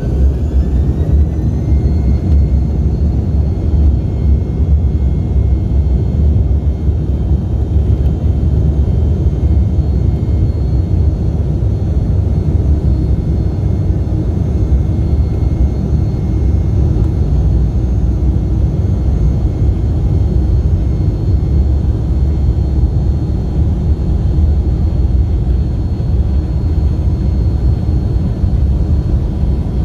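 Embraer E195's GE CF34-10E turbofans heard from inside the cabin, spooling up to takeoff thrust: a whine rises over the first two seconds, then holds steady. Under it runs a loud, steady rumble as the jet accelerates down the runway on its takeoff roll.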